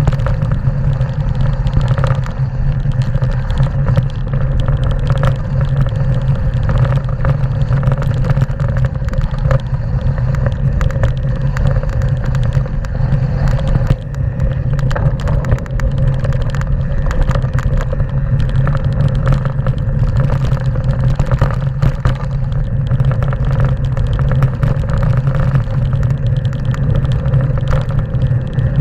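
Mountain bike riding fast down a loose gravel trail: a steady low rumble of tyres over stones and wind on the handlebar-mounted camera, with constant small clatters and knocks from the bike rattling over the rough surface.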